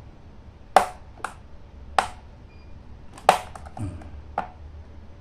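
About five sharp, separate clicks of a Phillips screwdriver against a laptop's plastic bottom case screws, as it works at a stuck screw that won't turn.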